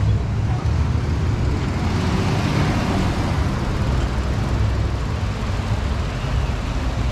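City street traffic: a steady low rumble, with a vehicle passing by and swelling loudest about two to three seconds in.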